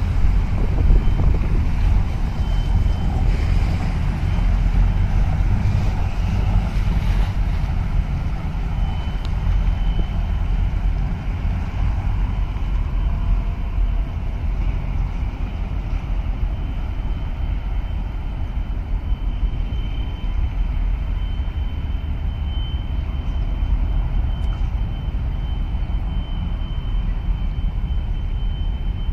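Steady low engine rumble of a small diesel harbour boat passing close by, loudest in the first few seconds and then easing slightly as it moves away across the water.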